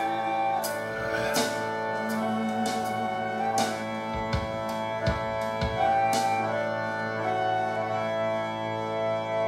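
Instrumental passage of a song played back through a pair of LS3/5A bookshelf speakers: held chords and sustained notes with a few soft drum and cymbal hits, no singing.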